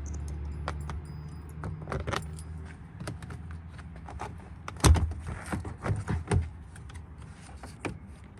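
Light clicks and jangling rattles of things being handled, with one heavy knock about five seconds in; a low steady hum fades out about three seconds in.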